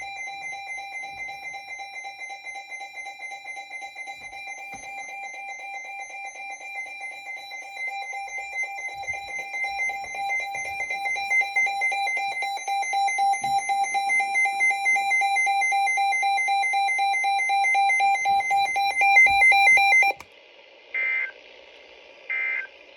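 Weather radio alert tone, sounding an incoming weather warning: a loud, rapidly pulsing electronic tone that slowly grows louder, then cuts off sharply about 20 seconds in. Two short, higher beeps follow.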